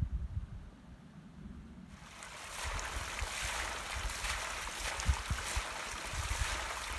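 Low wind buffeting on the microphone, then from about two seconds in a steady splashing of water pouring from a wooden trough's spout onto stones, with gusts of wind on the microphone underneath.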